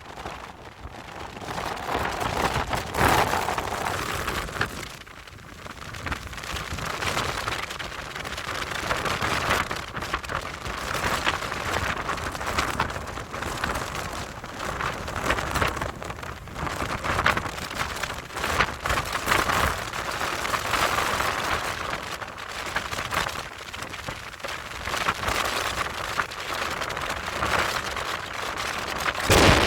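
Strong gusting wind buffeting the phone's microphone, rising and falling in gusts.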